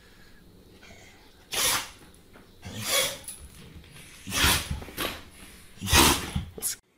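A pet sneezing over and over: about four sharp sneezes roughly a second and a half apart, with smaller snorts between them. The last sneeze is the loudest.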